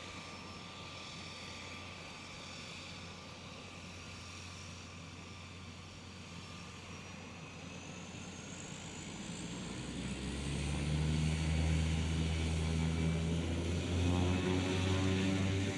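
de Havilland Canada DHC-3 Otter floatplane's engine and propeller running steadily at low power with a faint rising whine, then growing much louder about ten seconds in as power comes up.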